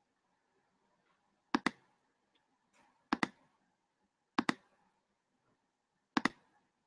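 Four pairs of sharp clicks, spaced about a second and a half apart: a computer mouse being clicked.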